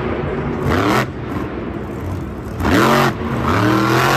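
Vehicle engine revving, as a sound effect for a monster truck. A steady engine rumble rises and falls in pitch a couple of times in the second half.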